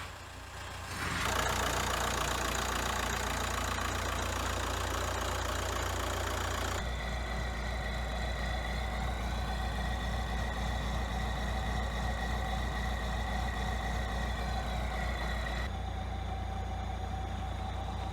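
Audi A4 B7's 1.9 TDI four-cylinder pumpe-düse diesel engine idling steadily, its sound changing abruptly about a second in, about seven seconds in and again near sixteen seconds.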